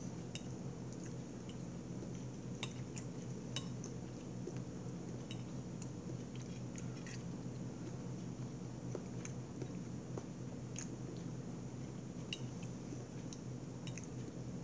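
Metal fork clicking and scraping against a plate at irregular intervals, about a dozen short clicks, over a steady low hum.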